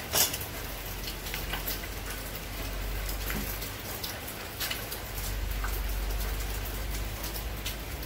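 Water trapped in a front-loading washing machine that will not drain, trickling out of the emergency drain hose and splattering onto a concrete floor, with scattered small drips and clicks. A sharp click comes just after the start.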